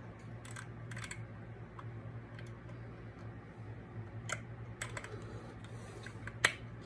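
Scattered light clicks and taps of small metal and plastic parts being handled as the oil pump worm gear is worked out of a Stihl MS460 chainsaw, with a sharper click near the end, over a steady low hum.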